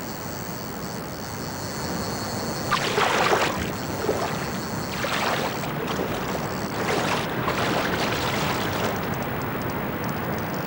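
Rushing river water with three louder splashing surges, about three, five and seven seconds in, from a hooked salmon thrashing at the surface as it fights the line.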